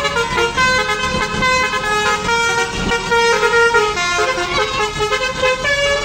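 Basuri V3 'telolet' multi-trumpet bus horn playing a tune: several horn tones sound together and step from note to note, with no break.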